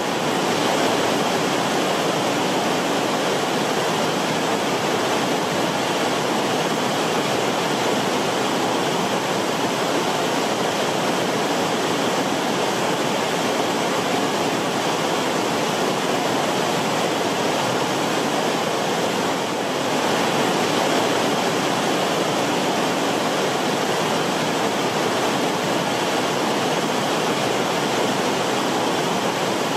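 River water flowing in a steady, continuous rush.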